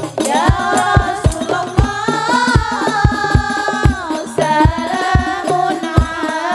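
Hadroh ensemble: women's voices singing a sholawat together over amplified frame drums beating a steady rhythm of about three strokes a second. The singing comes in at the start, right after a stretch of drums and jingles alone.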